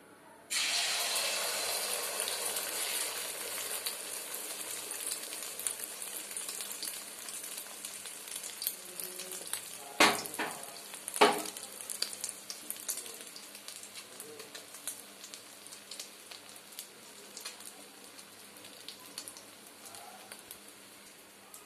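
Beaten egg hitting hot oil in a metal kadai: a sizzle starts suddenly about half a second in and slowly dies down as the omelette fries. Two sharp knocks about ten and eleven seconds in.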